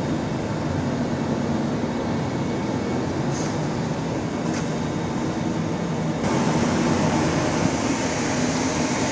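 Steady electric machinery hum with a faint steady tone, from a parked electric semi tractor whose auxiliaries (air conditioning, air compressor, hydraulic pump) run off the battery with no engine. The hum gets slightly louder and brighter about six seconds in.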